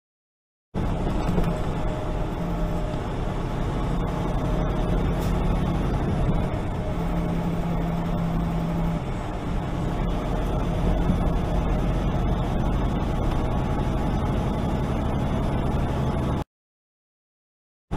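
Steady drone of a loaded semi truck's diesel engine and tyre noise at highway speed, heard from inside the cab. It starts a little under a second in and cuts off abruptly about a second and a half before the end.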